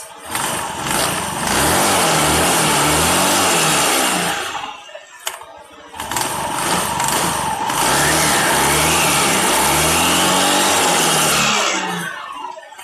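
Honda Vario 150 scooter engine revved in two long runs of a few seconds each, with a short dip between them; the pitch rises and falls repeatedly as the throttle is worked. The CVT is being run up to test it for a rough, growling noise.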